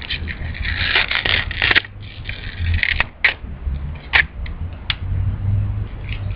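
Fujifilm peel-apart instant film being pulled apart, the print coming away from its negative: a crackly ripping for about two seconds, then a few sharp paper clicks and crackles.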